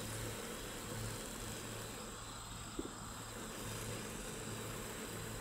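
Steady high insect buzz, with a low hum beneath it that swells and fades about once a second, and one short click nearly three seconds in.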